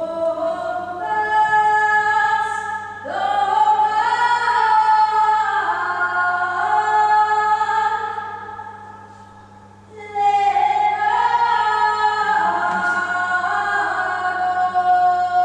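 A capella singing: several voices hold long, overlapping notes in chords. The sound swells, fades out around nine seconds in, and a new chord comes in about a second later. A faint steady hum runs underneath.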